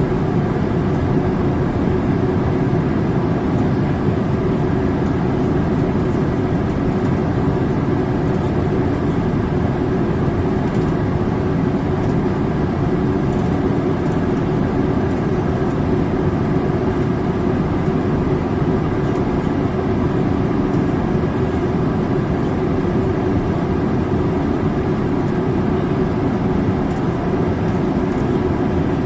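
Steady cabin noise inside a Boeing 787-8 Dreamliner: an even, unbroken rush of engine and air noise, heaviest in the low range, with a constant hum running through it.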